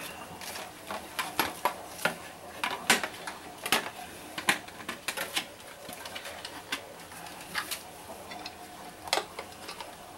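Plastic parts of a refugium light (housing, bracket and power-compact bulb) being handled and fitted together: a scattering of sharp clicks and light knocks at irregular intervals.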